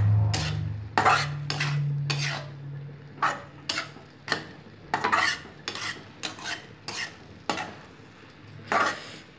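A spoon scraping and clinking against a metal wok as a dry grated vegetable mixture is stirred, in irregular strokes about once or twice a second.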